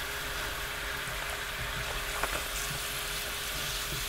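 Sunchoke chips deep frying in raccoon fat: a steady sizzling hiss of hot fat, with a faint steady hum underneath.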